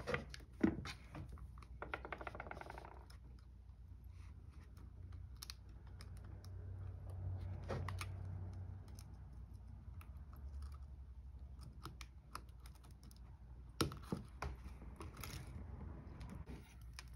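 Small hand tools clicking and scraping against an iPad Air's metal frame as a plastic spudger and tweezers pry and peel away the cracked digitizer glass and its adhesive. Scattered sharp clicks, with a short rapid scrape about two seconds in, over a steady low hum.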